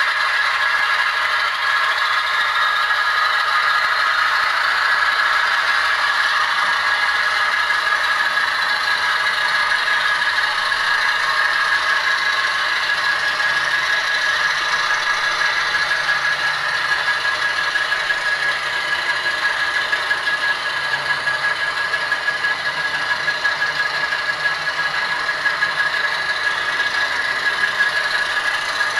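HO-scale Atlas ALCO RS-1 model diesel locomotives running under DCC: a steady high whine over rattling and scraping mechanism noise.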